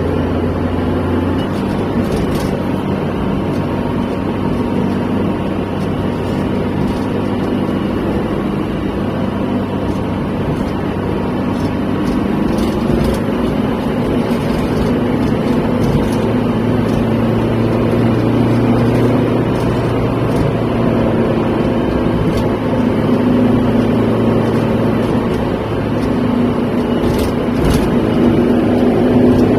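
Steady drone of a car driving at road speed, heard from inside the cabin: engine hum and tyre noise. The engine note shifts a few times as the speed changes.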